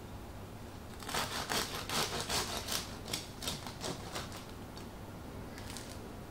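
Serrated bread knife sawing through the crisp crust of a crusty no-knead loaf: a quick run of crackling crunches for about three seconds, then a few fainter crust crackles near the end.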